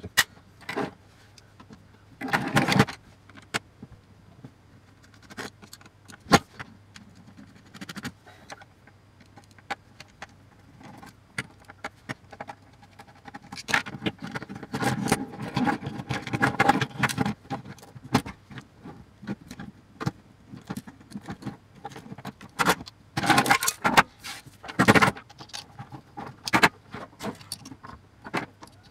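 Screwdriver and small metal parts clicking, scraping and rattling as screws are worked out of a metal avionics chassis and its parts are handled and set down on a wooden desk. The clicks come scattered, with a busier stretch of scraping and rattling in the middle and a cluster of louder knocks near the end.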